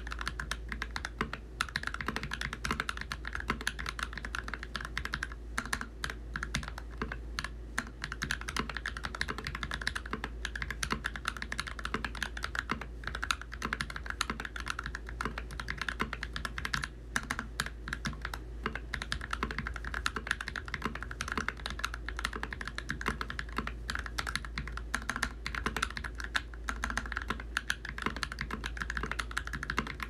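Steady, fast typing on an NK65 Entry Edition mechanical keyboard with Creampaca switches and Akko Neon double-shot keycaps: a continuous stream of key clacks.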